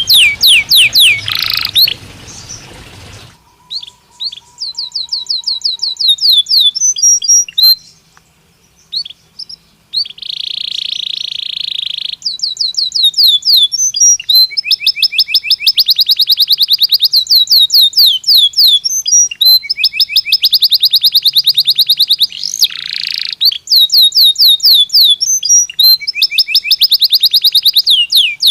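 Belgian canary singing: long runs of fast repeated chirping notes and high buzzing trills, with a short pause about a third of the way through.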